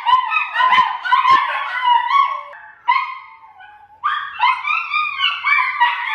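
Several Italian greyhounds howling together, overlapping high-pitched howls and whines, with a short lull about three seconds in before the chorus resumes.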